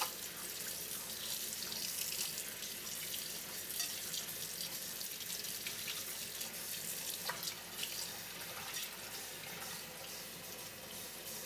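Kitchen tap running a thin stream into a glass bowl in a stainless steel sink, with small splashes as wet wool yarn is squeezed and swished by hand in the water. This is the rinse of freshly dyed yarn, done to check that the water runs clear.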